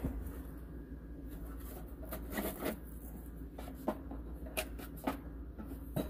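Scattered light clicks and knocks of handling, over a low steady hum.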